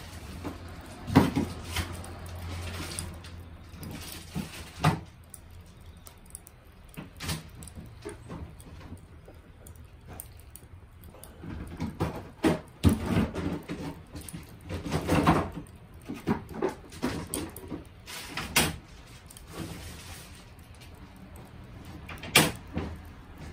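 Scattered knocks and clatters of hard objects being handled, in bunches about a second in, around the middle and near the end.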